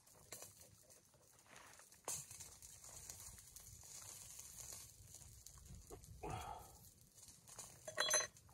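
A farm animal calling twice, briefly about six seconds in and louder near the end, over a faint steady hiss.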